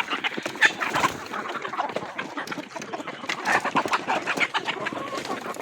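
A flock of desi chickens clucking and calling over one another in a continuous jumble of short calls.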